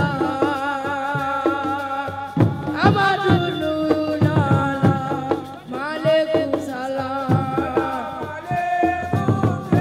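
Music with a sung or melodic line full of wavering, gliding ornaments over hand-drum percussion.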